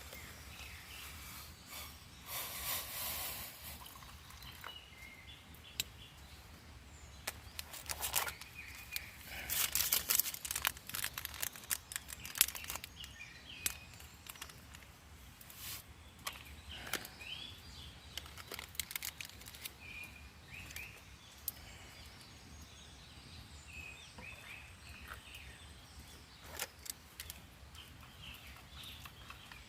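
Wild birds chirping, with scattered close rustles and clicks, the loudest a couple of seconds in and around ten seconds in.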